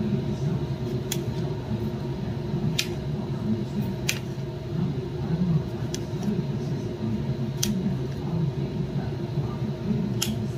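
Kitchen knife slicing a peeled cucumber on a steel plate: a few sharp clicks, about six, as the blade goes through and taps the plate, over a steady low hum.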